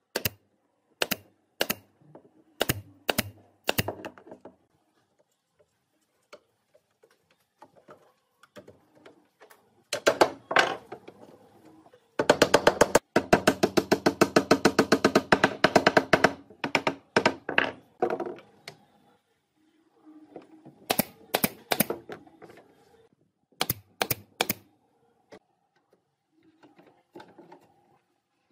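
Sharp knocks and taps on wood in short groups, with a fast run of rapid clicks about halfway through.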